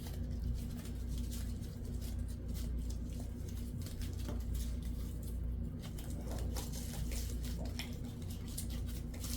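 Light, scattered tapping and rustling of small craft pieces being handled and pressed down, over a steady low hum.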